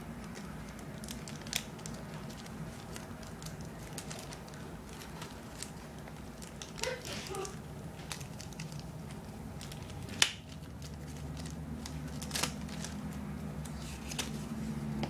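Small plastic toy parts and packaging being handled: scattered sharp clicks and crinkling, the loudest click about ten seconds in, over a steady low hum.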